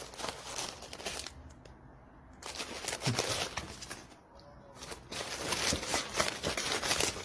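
A cat rummaging in a cardboard box of tea-bag sachets, the packets rustling and crinkling in three bouts of a second or two each.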